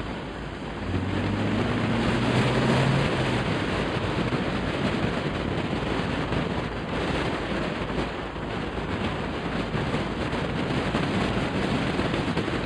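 A car driving along a road: steady road and wind noise, with a low, steady engine note that stands out for a couple of seconds after the level rises about a second in.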